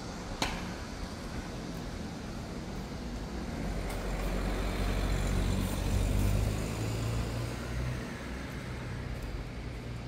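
Steady outdoor background rumble that swells for a few seconds in the middle and then settles back, with one sharp click just under half a second in.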